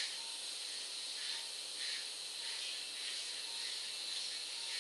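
Steady hiss with no speech.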